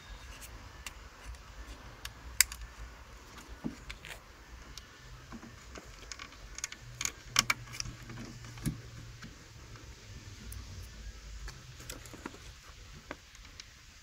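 Hard plastic clicks and taps as a replacement mirror turn-signal lamp and its wiring connector are handled and fitted into a Toyota Prius door mirror housing. The sharpest click comes about two and a half seconds in, with a run of clicks around seven seconds.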